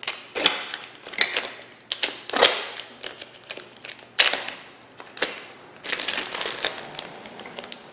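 Plastic bag holding a set of new disc brake pads being cut open and pulled apart, with irregular crinkling and crackling as the pads are drawn out.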